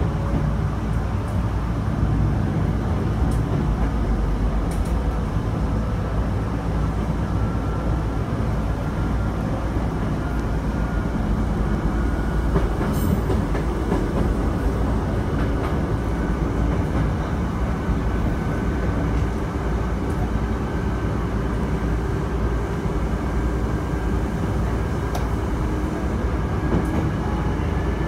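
Chichibu Railway electric train running along the line, heard from inside the front car behind the cab: a steady rumble of wheels on rail, with a faint motor whine that slowly rises in pitch as the train gathers speed.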